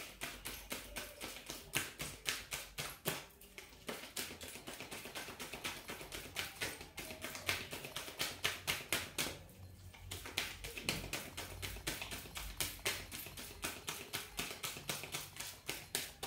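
A deck of tarot cards being shuffled by hand, the cards slapping together in a steady run of about three to four taps a second, with a couple of brief pauses.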